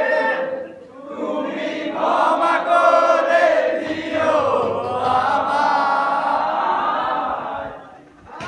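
A group of young men singing together in unison in long, held phrases, with short breaks about a second in and near the end.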